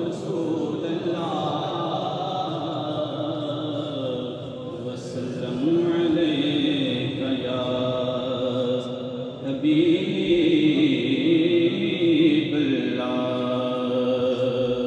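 A man chanting durood (salawat on the Prophet) into a microphone in long, held melodic lines, amplified through the mosque's sound system. It grows louder about halfway through.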